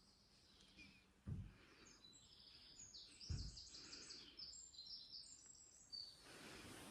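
Two faint footsteps about two seconds apart, with birds chirping in quick, short, high notes from about three seconds in to near the end.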